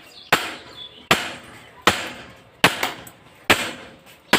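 Repeated hammer blows on a bent front fork tube of a Royal Enfield Bullet to drive the jammed tube out of the fork clamps. About seven sharp strikes, roughly one every three-quarters of a second.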